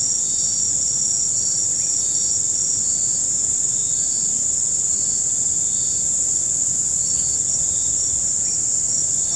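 Dense insect chorus: a steady, high-pitched buzz, with shorter chirps repeating roughly once a second beneath it.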